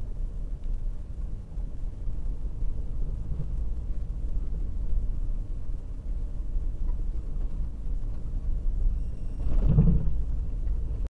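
Steady low rumble of a vehicle driving on a dirt road, heard from inside the cabin: tyre and road noise with the engine under it. A brief louder surge comes near the end, then the sound cuts off suddenly.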